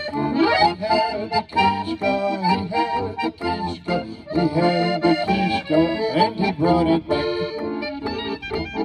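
Bavarian-style brass band playing a lively traditional tune live, with a tuba carrying the bass line.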